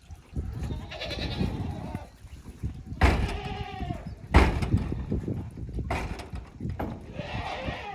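Goats bleating, three wavering calls with the loudest near the middle, over low rumbling and two sharp knocks close against the microphone.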